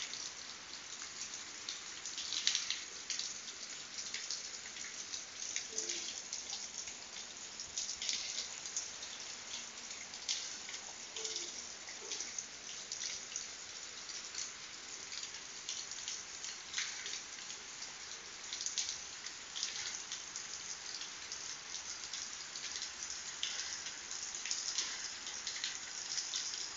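Heavy rain falling steadily on leaves and wet, puddled ground: an even hiss dotted with many small splats of drops.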